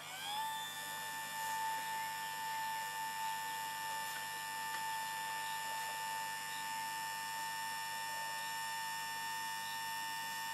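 Small electric fuel pump on a fuel canister, refuelling a model turbine helicopter: it spins up in the first half-second, then runs with a steady high whine.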